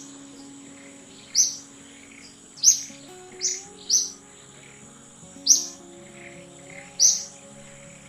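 Six short, high chirps that drop quickly in pitch, spaced irregularly about a second apart, over background music of slowly changing held notes.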